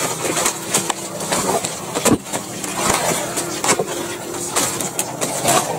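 Footsteps crunching and rustling through dry fallen leaves, irregular crunches with one sharper crackle about two seconds in.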